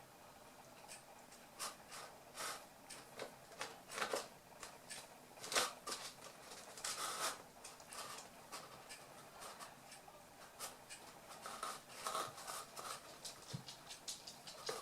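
Toy poodle puppies at play: irregular light taps, clicks and scratches of small paws and claws scrabbling, with a few faint pitched sounds now and then.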